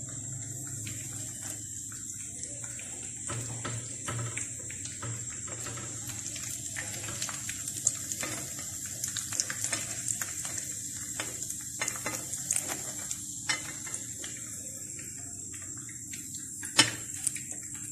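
Breaded cutlets frying in hot oil with a steady sizzle, over scattered clicks and taps of a slotted spatula against the frying pan and a glass plate as the cutlets are turned and lifted out; the sharpest tap comes near the end.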